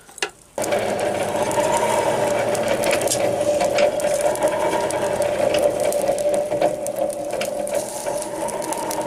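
Hand-cranked No. 400 forge blower turning steadily: a gear whine over the rush of air forced into the coal fire, heating the blade toward quenching heat. It starts about half a second in, just after a click.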